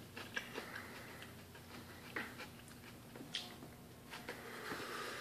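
A man chewing a bite of fermented salmon: faint wet mouth noises with a few sharp clicks and lip smacks, and a breath near the end.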